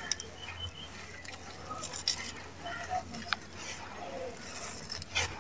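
Dry, crumbly sand slab being crushed by hand, loose grains pattering and trickling down, with a few crisp crunches and a sharper pair about five seconds in.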